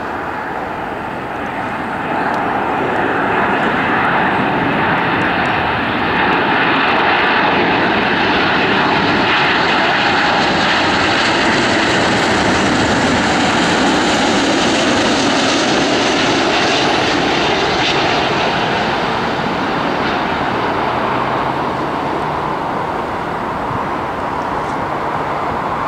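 Boeing 777-200's twin Rolls-Royce Trent 800 turbofans on final approach with gear down: a steady jet roar with a high engine whine, growing louder about two seconds in, loudest through the middle and easing off toward the end as the airliner flies on to the runway.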